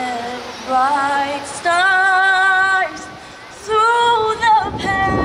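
A woman singing slow, held notes with vibrato in short phrases, with little or no accompaniment.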